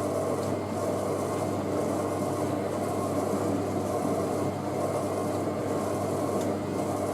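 Hoover Ecologic 1300 front-loading washing machine spinning a load of bedding at a steady low speed, its motor and drum making a constant whirring hum.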